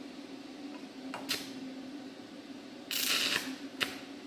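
Stick welder arc crackling in short bursts as the electrode is struck on sheet steel, the longest about three seconds in, with a steady low hum underneath.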